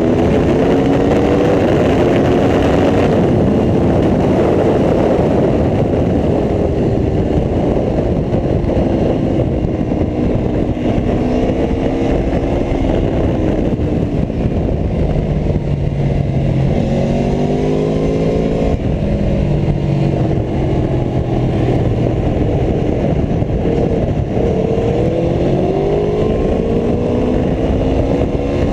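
Aprilia Tuono V4 1100 RR's V4 engine being ridden hard, its pitch repeatedly climbing and dropping, with a run of stepped drops about halfway through. Heavy wind rush over the microphone.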